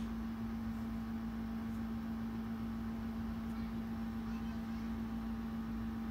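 A steady low hum with a faint even background hiss, holding one level throughout; no distinct event stands out.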